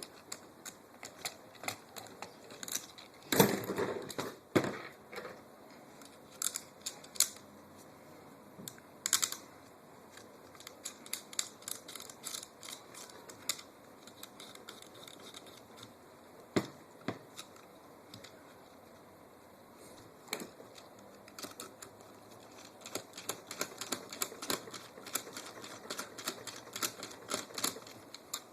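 Irregular light clicks and taps of metal parts, screws and tools being handled while a screw-on handguard rail is fitted to a KWA LM4 airsoft rifle, with a few louder knocks, the loudest cluster about three and a half seconds in.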